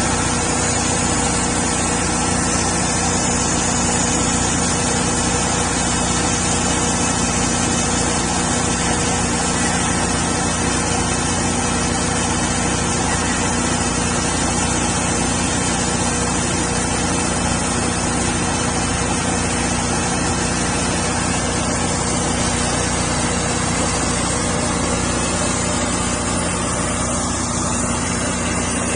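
Homemade sawmill running steadily, its small engine holding an even pitch while the blade cuts through a spalted maple log.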